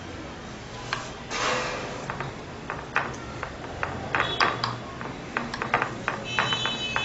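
Light clicks and taps of hands setting slices of set jelly into a glass baking dish and pressing them down against the glass, with a short rustle about a second and a half in. A high steady ringing tone starts near the end.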